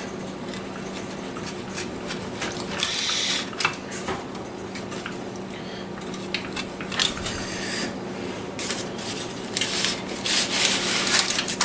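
Pizza cutter wheel rolling and scraping through a chicken quesadilla, in irregular scratchy strokes with small clicks, over a steady low hum.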